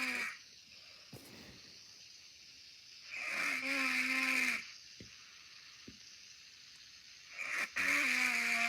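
A person snoring in a regular rhythm, one drawn-out pitched snore about every four seconds: one in the middle and another beginning near the end.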